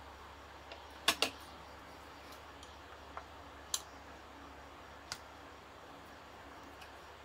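Scattered clicks and taps of hands and a small screwdriver on the plastic housing of a Bluetooth speaker being taken apart: a quick double click about a second in, then single clicks near four and five seconds. A faint steady low hum lies under them.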